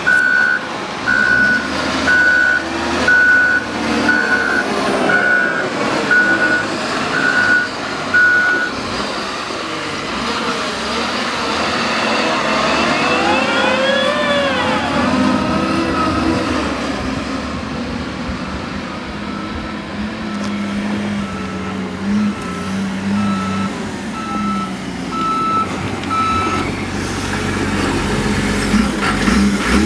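Backup alarms of heavy vehicles reversing: a string of steady, evenly spaced beeps, about one a second, for the first several seconds, then a second, slightly lower-pitched alarm beeping later on. Truck engines run underneath throughout, with a rising and falling whine around the middle.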